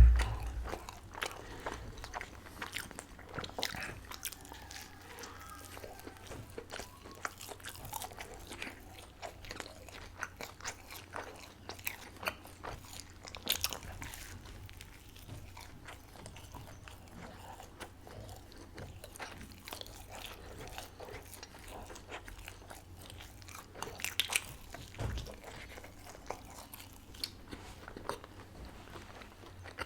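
Close-miked eating sounds of a chicken-stuffed crepe: steady chewing with small wet mouth clicks and a few louder crunchy bites, the clearest around halfway and about 24 seconds in. A low thump right at the start is the loudest sound.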